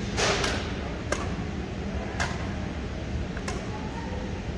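Badminton rackets striking a shuttlecock in a rally: four sharp cracks at irregular intervals of about a second, over a steady low hum.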